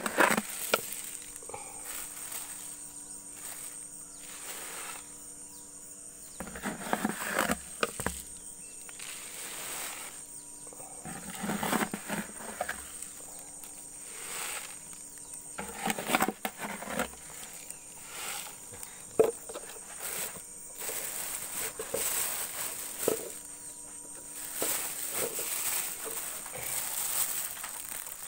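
Chicken feed being handled: mixed grain scooped by hand in a plastic bucket and poured from a plastic bag, heard as irregular rustling and pouring, over a steady high-pitched insect drone.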